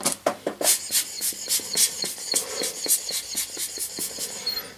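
Quick series of short hissing puffs, about four to five a second, from air being blown in bursts to clear dust off a hard drive's underside and contacts.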